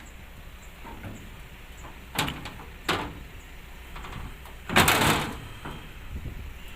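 A few knocks, then a louder clattering bang about five seconds in, from work on the excavator's metal body panels.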